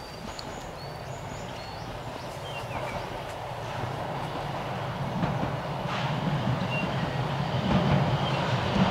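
Eizan Electric Railway 800 series electric train approaching on the rails, its rumble growing steadily louder.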